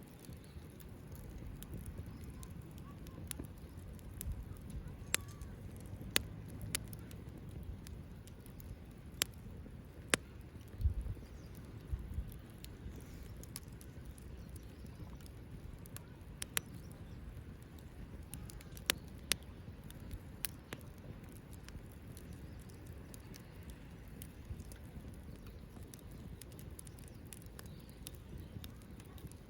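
Small wood fire burning in a compact folding fire stand, crackling with a steady low rush and a dozen or so sharp pops at irregular intervals.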